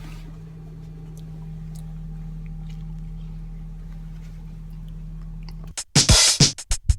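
Steady low drone of a car's engine and road noise heard inside the cabin, with faint scattered clicks. About six seconds in, loud electronic music with a drum-machine beat cuts in.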